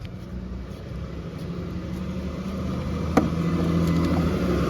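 A vehicle engine running, a steady low hum that grows gradually louder, with a single sharp clink about three seconds in.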